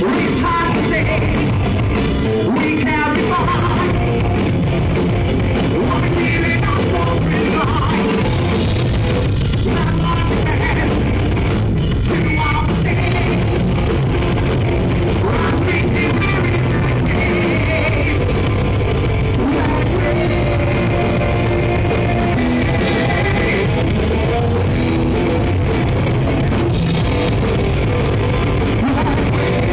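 A heavy rock band playing live and loud: distorted electric guitars over a full drum kit, without a break.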